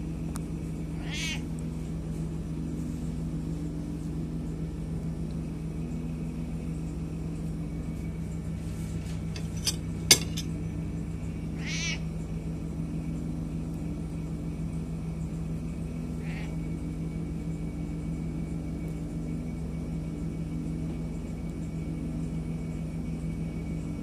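An old, deaf cat gives three short croaking meows several seconds apart, the loudest about halfway through and a faint one a few seconds later. A steady low hum runs underneath, and two sharp clicks just before the loudest meow are the loudest sound.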